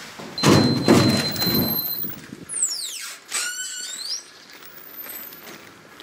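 Heavy entrance door opening: a loud clunk and rattle with a steady high electronic beep over it, then a wavering squeal that falls and rises in pitch.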